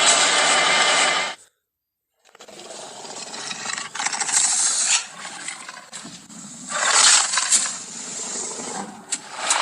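Dinosaur sound effects for a cartoon Tarbosaurus: a loud, harsh noise that cuts off about a second and a half in, then after a short silence a rougher, uneven sound that swells and fades several times, with a few sharp clicks near the end.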